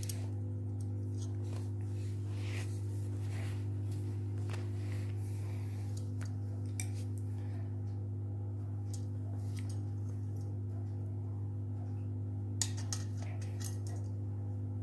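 Light metallic clicks and scrapes of hand tools working a seized ball bearing off a ceiling fan motor, over a steady low hum.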